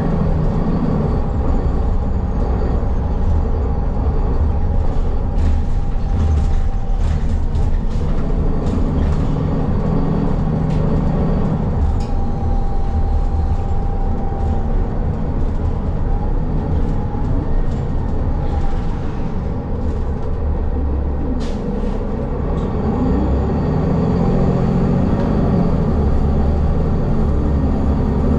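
Ride inside a city bus: engine and drivetrain running steadily, the engine note falling and rising as the bus slows and picks up speed, with occasional clicks and rattles from the cabin.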